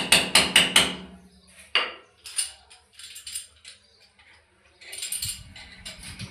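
Metal tool clinking and tapping against a broken tap's metal stub in a wall fitting. A quick run of about five taps comes in the first second, then scattered single clinks.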